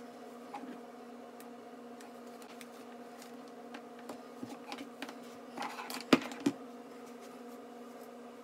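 A steady electrical hum, with light clicks and rustles of things being handled and two sharp knocks about six seconds in.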